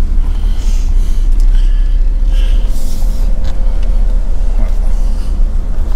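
Steady low rumble of a pickup truck driving slowly over a rough, potholed road, heard from inside the cab.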